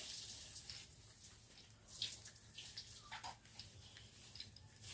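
Scissors cutting a plastic courier bag: a few faint, short snips and crackles of plastic about a second apart.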